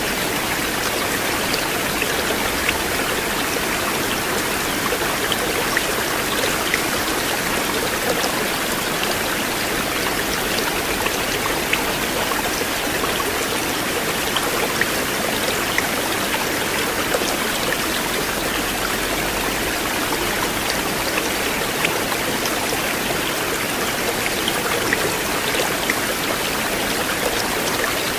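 River water flowing in a steady, continuous rush, with many small splashes and drips flecking it.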